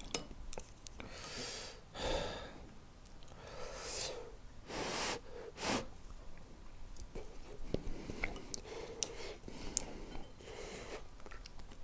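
A person eating quietly: a few soft breaths through the nose, light clicks of a spoon and chopsticks against the dishes, and faint chewing.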